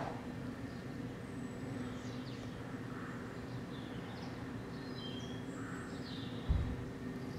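Outdoor garden ambience: scattered faint bird chirps and short whistles over a steady low hum, with a brief low thump about six and a half seconds in.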